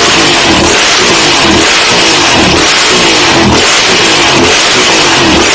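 Moto Guzzi V7 Stone's air-cooled V-twin, fitted with loud custom twin exhaust pipes, revved hard in repeated throttle blips about once a second, the pitch swinging up and down each time. The sound echoes off the garage walls.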